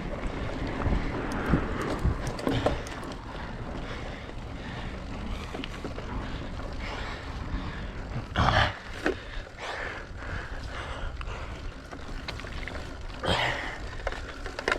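Wind buffeting the microphone in the first few seconds, then a sick rider's breathing broken by two loud, short coughs, about eight and thirteen seconds in, from a sore throat and chest.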